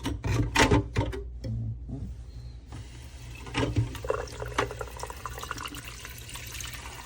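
Water pouring into a plastic espresso-machine water tank, a steady splashing hiss that starts a little under three seconds in, after a few knocks of handling.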